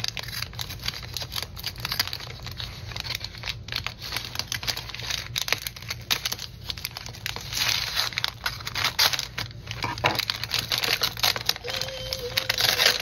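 Scissors cutting along the edge of a brown kraft paper bag, with the stiff paper crinkling and crackling as it is held and handled, then pulled open by hand near the end.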